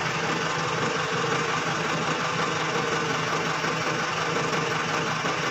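Diesel engine of a Dynapac road roller idling steadily.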